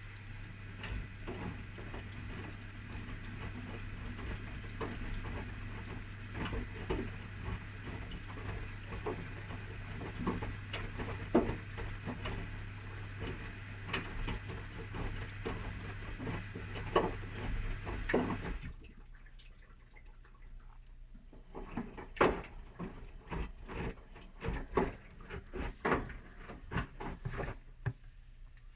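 Whirlpool washing machine in its main wash: water sloshing and splashing in the drum over a steady low hum. The hum cuts off about two-thirds of the way through, and the splashing goes on alone.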